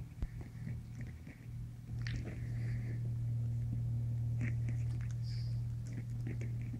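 Labrador puppies wrestling and play-biting, with scuffling, mouthing clicks and a few short high squeaks, over a steady low hum.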